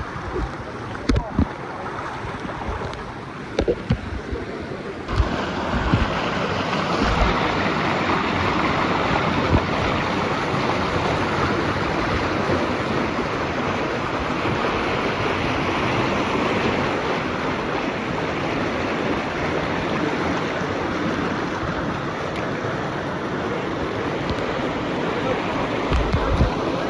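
Rushing water of a strong river current, with a few sharp knocks and bumps in the first few seconds. About five seconds in, the sound changes suddenly to a steady, louder rush.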